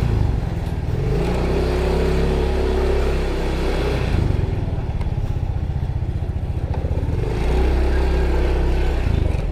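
Yamaha Mio i 125 scooter's single-cylinder four-stroke engine running as the scooter rides off. The revs climb about a second in and again near the end as it pulls away.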